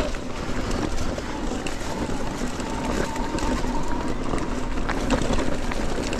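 Electric mountain bike rolling along a flat stretch of dirt trail: tyres rumbling over the ground and the bike rattling with many small knocks, with wind rumbling on the microphone.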